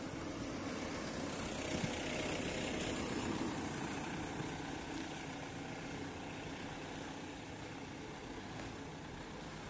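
A car's engine running as it drives slowly past on the street, growing louder for the first few seconds and then slowly fading.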